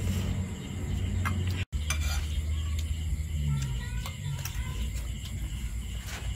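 Metal spoons clinking and scraping against ceramic bowls as people eat, a few scattered clicks over a low steady rumble.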